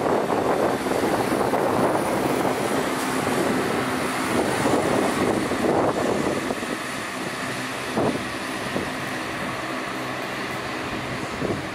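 Chiltern Railways diesel multiple unit passing and pulling away: a steady diesel engine drone with the rumble of wheels on the rails, fading after about six seconds, and a sharp click about eight seconds in.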